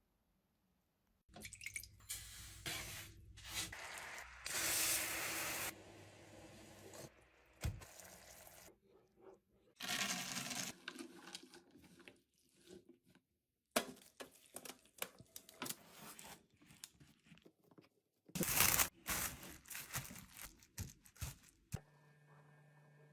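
Food-preparation handling sounds: irregular crunching, tearing and wet squishing noises in bursts with short pauses between them, starting about a second in. Near the end they give way to a faint steady hum.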